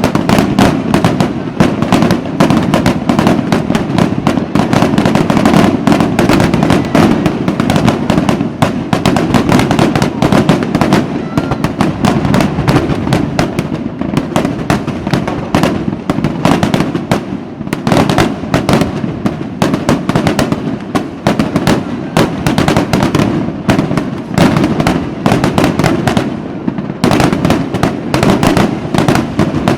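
Fireworks going off in a dense, continuous barrage: many sharp bangs and crackles overlapping several times a second over a steady rumble.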